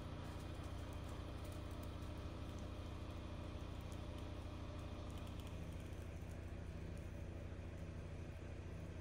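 A generator engine running steadily in the background, an even drone that does not change.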